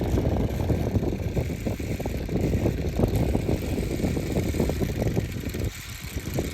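Strong wind buffeting the microphone: a gusty low rumble that eases briefly near the end.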